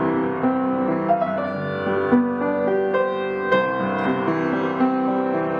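Background piano music, held notes changing every half second or so.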